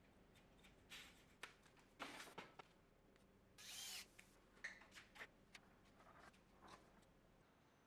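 Near silence, broken by faint scattered clicks and brief rustling scrapes of handling, about a dozen in all and mostly in the first two-thirds.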